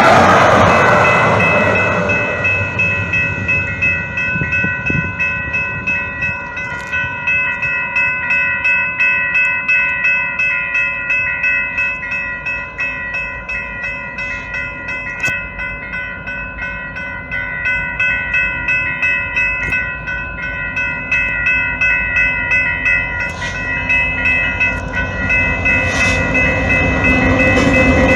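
Level-crossing warning bells ringing in a fast, steady repeating pattern while the gates are down. At the start a passing light-rail train's rushing rumble fades within about two seconds. Near the end the rumble of an approaching freight train, led by a Canadian Pacific diesel locomotive, grows louder.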